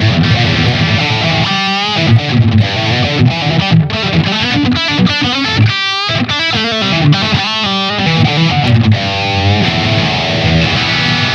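SQOE SEST960 HSS electric guitar being played: held chords with quick runs of single notes in the middle.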